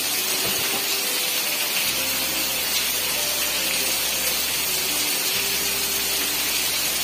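Heavy rain pouring down in a dense, steady hiss.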